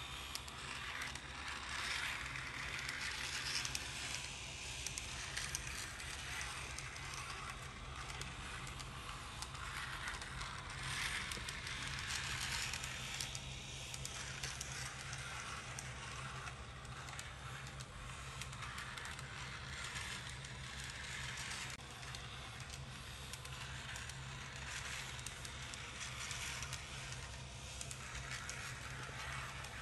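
Small model tram running on its track: a steady rattling whir of the little motor and wheels on the rails, growing louder and fading again as it comes near and moves off, over a low steady hum.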